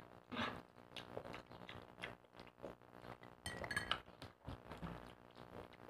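A metal spoon clinking faintly and now and then against a glass beer mug as papaya pieces are fished out, with a small cluster of clinks a little past halfway.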